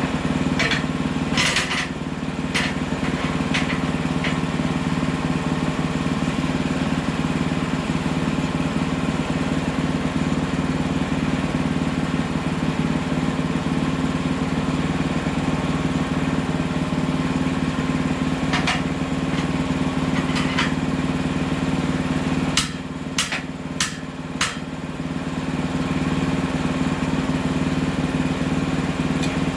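Hudson Hunter band sawmill's engine running steadily with a strong low hum, with a few sharp knocks near the start and again around twenty seconds in. About 23 seconds in the hum drops for a couple of seconds, with several sharp knocks, then it picks up again.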